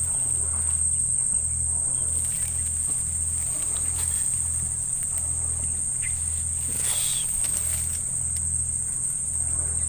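Steady high-pitched drone of insects calling, with a low hum underneath that pulses roughly once a second.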